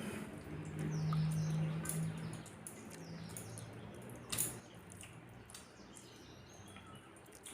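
Mouth sounds of eating rice and curry by hand: scattered wet clicks and smacks of chewing, one sharper click about four seconds in, and a low hum in the first two seconds. Faint bird chirps are heard behind.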